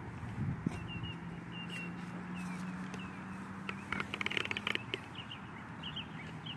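A small bird chirping in short repeated notes, with a quick run of chirps about four seconds in, over a steady low hum.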